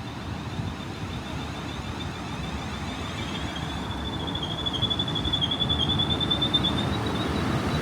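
Passenger train pulling out of a station: a low rumble that slowly builds, with a high thin squeal wavering from about two and a half seconds in until near the end.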